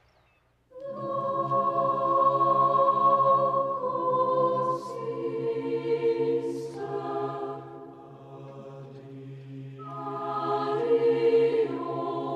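Mixed choir of men's and women's voices singing slow, sustained chords, coming in about a second in. The chords shift twice in the middle, the singing softens about two-thirds through, then swells again near the end.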